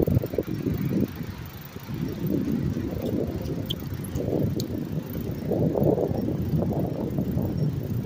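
Riding noise from a moving bicycle: an uneven low rumble of wind buffeting the microphone, mixed with tyre noise, swelling and falling in gusts.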